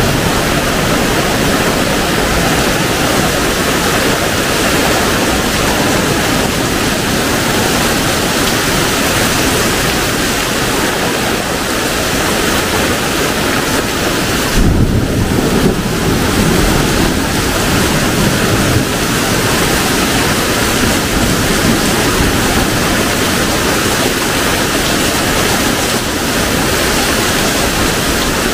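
Heavy rain pouring steadily. About halfway through there is a brief louder low rumble lasting a few seconds.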